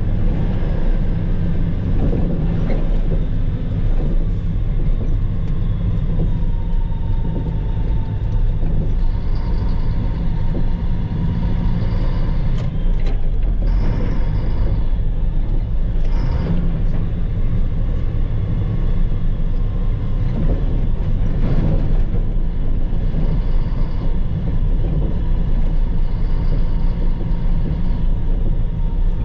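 Dump truck's diesel engine running steadily as the truck drives, with road and cab noise, heard from inside the cab. A few short noises stand out around the middle.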